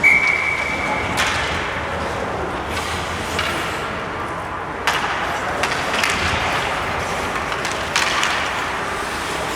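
Ice hockey game play: a short steady referee's whistle at the start, then skates, sticks and puck on the ice over steady rink noise. Sharp knocks come about a second in, near five seconds and again around eight seconds.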